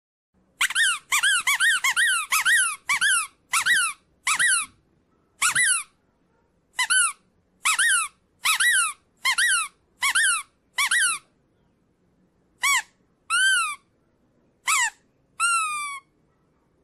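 Squeaky dog toy squeezed again and again: a quick run of high squeaks, then slower single squeaks, each rising and then falling in pitch, with the last two drawn out and sliding down.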